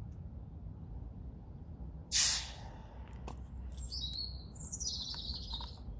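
A brief sharp hiss about two seconds in, as the hot, freshly melted solder is quenched in water, followed near the end by faint high chirps.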